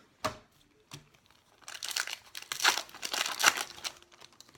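Foil trading-card pack wrapper being handled and torn open: two sharp snaps, then about two seconds of dense crinkling.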